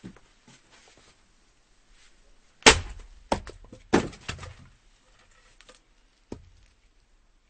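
Firewood being chopped with an axe: a loud, sharp strike on the wood about two and a half seconds in, followed within a second and a half by three more strikes and knocks. A single smaller knock comes near the end.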